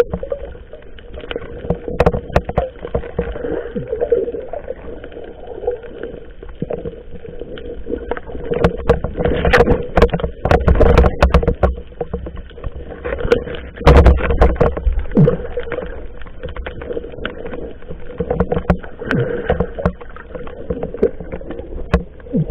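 Water splashing and knocking around small fishing boats as the crew closes an encircling pamalo net, over a steady hum. There are irregular knocks throughout and heavier bursts of splashing and wind buffeting about ten and fourteen seconds in.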